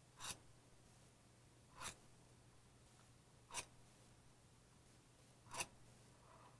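Steel scriber point drawn across the end of a half-inch steel angle four times: short, light scratches about two seconds apart, marking a cutting line.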